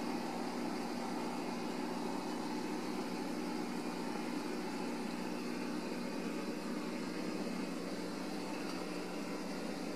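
A steady mechanical hum with hiss, like a fan or air conditioner running, unchanging throughout.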